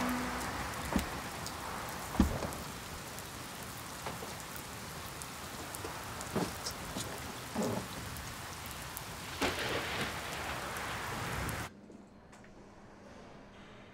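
Steady rain falling on pavement, with a few sharp knocks, the loudest about two seconds in. The rain cuts off suddenly near the end, leaving only a faint quiet background.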